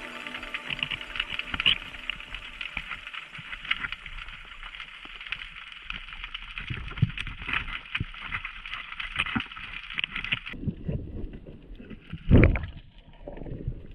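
Underwater sound through a dive camera's housing: a dense crackle of small clicks that thins out sharply about ten seconds in. Then a single loud low thump near the end, among the rocks where a spearfisher's shaft has gone into a scorpionfish.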